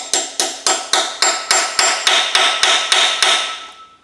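Hammer blows driving an undersized 7/16 socket onto a corroded, rounded exhaust-manifold nut on a Ford 5.4 Triton engine, about four sharp ringing metal strikes a second, stopping shortly before the end.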